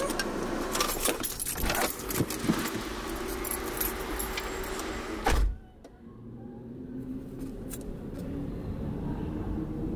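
Clicks and rattles of a car door opening and someone climbing out, then the car door slamming shut about five seconds in. After the slam the sound is muffled inside the closed cabin, leaving a quiet low hum.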